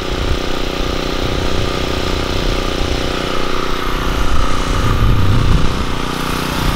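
Pressure washer running steadily, its small engine droning under the hiss of the water spray from the wand.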